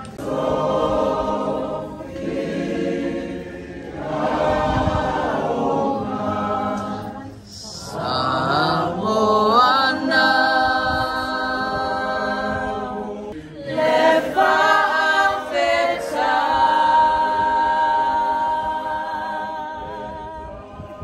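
A group of people singing together, holding long notes with short breaks between phrases.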